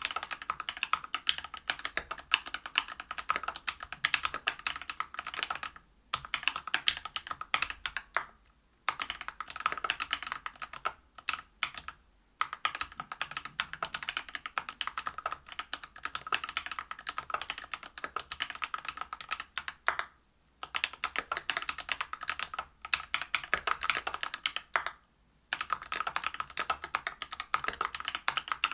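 Steady fast typing on a Whale 75 mechanical keyboard with lubed Everglide BeesWax 67 g linear switches, a brass plate and PBT keycaps, with a dense run of keystroke clicks. The typing stops briefly about five times.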